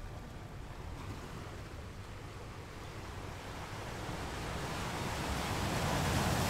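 Ocean surf washing on a shore, a steady rushing that builds louder over the last few seconds as a wave comes in.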